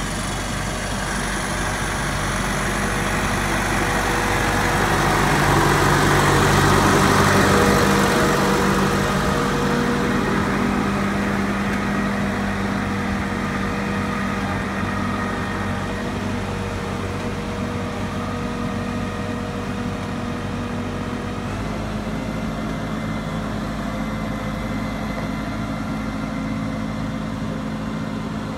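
Ford 7740 tractor's diesel engine running as the tractor drives past, growing louder to a peak about seven seconds in, then running steadily as it moves away.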